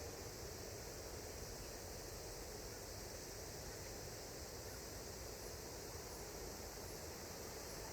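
Faint, steady outdoor ambience: low wind rumble on the microphone under an even high hiss, with no distinct events.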